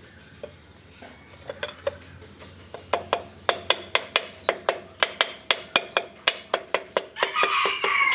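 Quick metal-on-metal tapping, about four strikes a second, each with a short ringing note. It starts about three seconds in and runs on to near the end.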